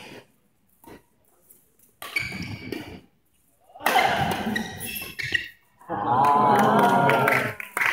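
Several voices shouting and cheering in a large sports hall during a badminton doubles rally. They come in three bursts, about two, four and six seconds in, and the last is the loudest, lasting about a second and a half.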